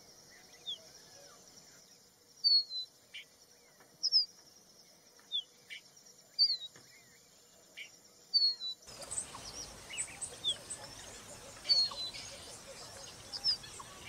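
Crested bunting calling: short, high chirps that slide down in pitch, one every second or so. About nine seconds in, the background hiss jumps up and the chirps go on over it.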